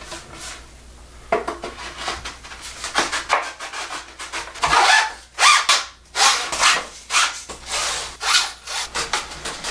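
Sections of a XERO water-fed pole sliding into one another as it is put back together: irregular rubbing and scraping strokes with a few sharper knocks.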